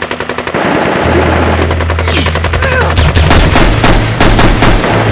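Rapid machine-gun-style gunfire in long continuous bursts, growing heavier about three seconds in, over a low steady drone.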